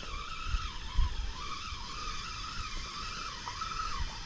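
Spinning reel on a feeder rod being wound in against a hooked fish, its gears whirring in a tone that wavers and dips as the handle speed changes.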